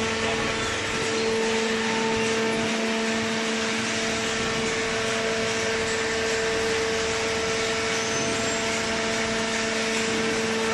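Hydraulic horizontal paper baler's motor and pump running with a steady hum.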